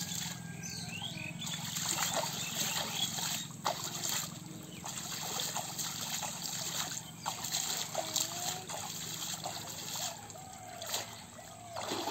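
Shallow muddy water splashed by hand again and again against a woven bamboo fish trap, with trickling and sloshing between the splashes.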